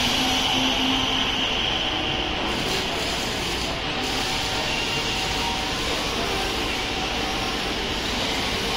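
Truck brake roller tester running: its electric drive motors, chain drive and grit-coated rollers spinning with a steady mechanical running noise.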